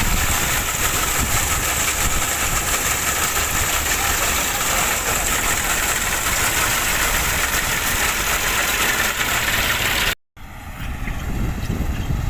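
Combine harvester running while harvesting wheat: a steady, loud mechanical drone. About ten seconds in it cuts out for an instant and comes back quieter and lower.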